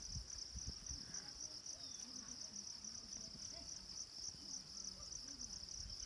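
A steady chorus of insects trilling, a high-pitched, fast-pulsing buzz that goes on without a break, with faint low rumbles underneath.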